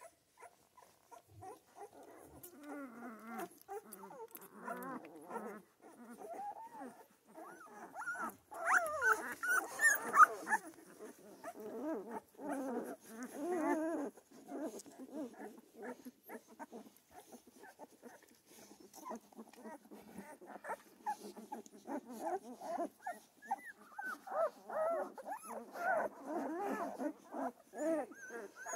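A litter of very young Central Asian shepherd puppies whimpering and squeaking in many short, wavering cries, with a louder run of squeals about nine seconds in.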